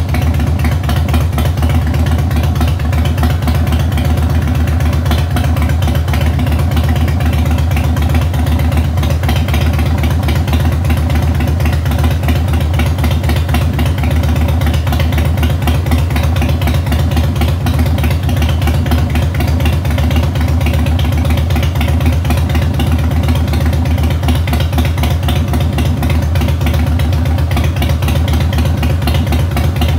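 Harley-Davidson Heritage Softail's big-bore 1550 cc V-twin with 211 cams, idling steadily with a loud, even low pulse.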